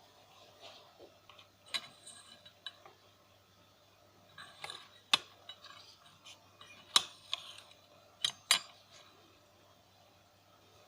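Scattered light clicks and taps, about seven in all, two of them in quick succession about eight seconds in, over a faint steady low hum.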